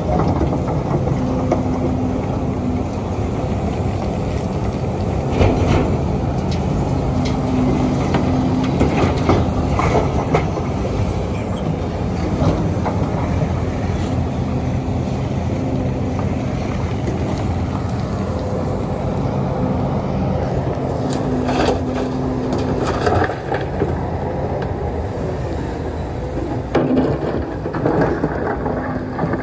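Sumitomo SH300 excavator's diesel engine running under hydraulic load while digging and loading stony material, with its engine tones coming and going and scattered clanks and knocks of rock and bucket.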